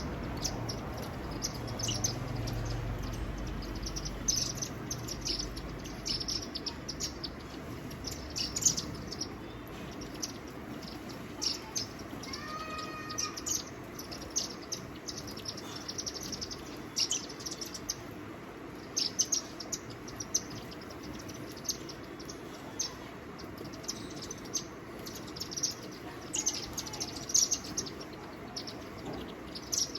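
Many small birds chirping, with short, high chirps coming thick and fast throughout. About twelve seconds in, a lower call made of several even tones sounds briefly. A faint low rumble runs under the first few seconds.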